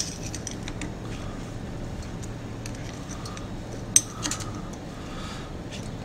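Flathead screwdriver clicking and scraping against the metal group head of a CBC Royal Synchro T2 espresso machine while prying out the old group gasket. Light metallic ticks throughout, with sharp clicks at the start and about four seconds in.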